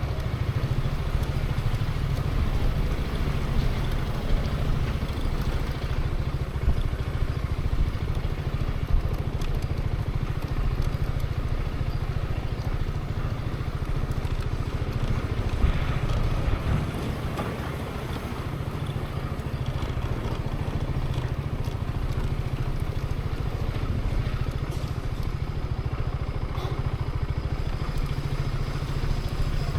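Zontes 350E scooter's single-cylinder engine running steadily at low speed, with a few small ticks and clatters over it.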